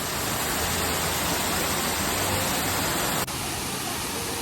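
Waterfall rushing: a steady, even roar of falling water. About three seconds in the sound drops abruptly and goes on a little quieter.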